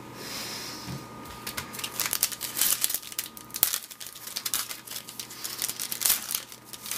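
Foil wrapper of a baseball-card pack crinkling as it is torn open by hand: a rapid run of sharp crackles that starts about two seconds in.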